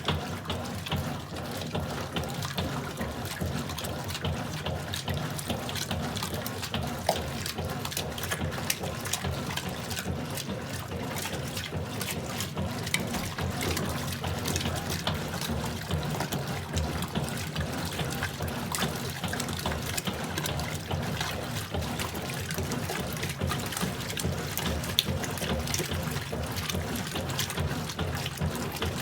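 Consul Pratice 6 kg washing machine running with water in it: a steady low hum under continuous splashing and trickling water, with frequent small clicks.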